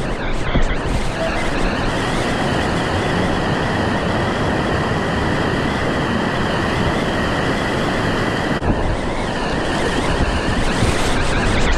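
Loud, steady rush of river rapids: whitewater noise with no distinct tones, briefly dipping about eight and a half seconds in.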